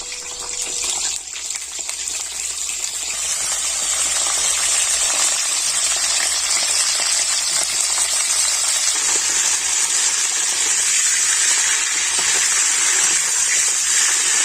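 Cauliflower florets frying in hot vegetable oil in a kadai: a steady sizzle that builds over the first few seconds, then holds.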